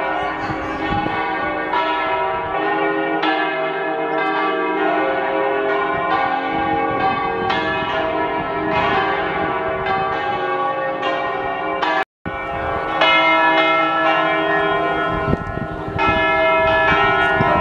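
Church bells pealing from a bell tower: several bells of different pitches struck in turn about once a second, their tones ringing on and overlapping. The sound breaks off for an instant about twelve seconds in, then the pealing carries on.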